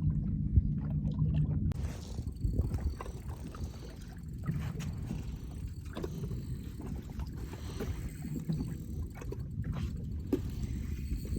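Steady low engine hum for the first second and a half, then it cuts off abruptly to low wind and water rumble on an open boat, with scattered small knocks.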